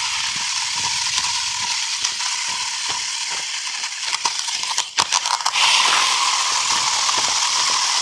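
Toy remote-control car's small electric motor and gears whirring as it drives, with its wheels crackling over rough ground and scattered clicks. It gets louder a little past the middle.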